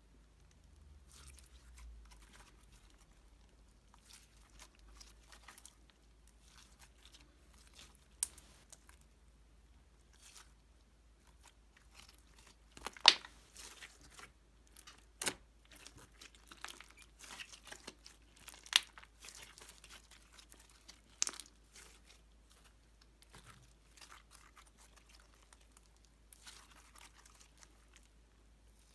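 White slime with polystyrene foam beads mixed in being squeezed and kneaded by hand, giving a steady soft crackling crunch broken by several sharp pops, the loudest near the middle.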